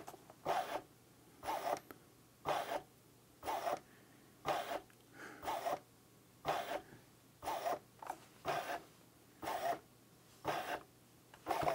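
Fleshlight Launch's motor-driven stroker mechanism running, a short mechanical whir about once a second at an even pace. It is being driven by video sync through the FeelMe app, and the strokes come out regular rather than following the video's action.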